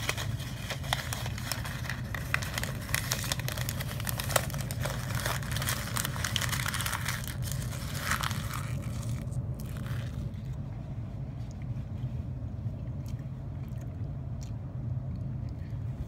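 Crinkling, scraping handling noise full of small clicks for about nine seconds, then only faint scattered clicks, over a low steady hum.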